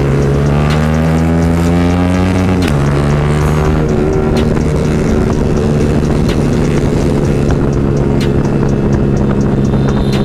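Yamaha R15 V4's single-cylinder engine with an aftermarket exhaust, heard from the rider's seat, accelerating with rising pitch. About two and a half seconds in the pitch drops sharply at an upshift, and the engine then runs steadily at cruising speed.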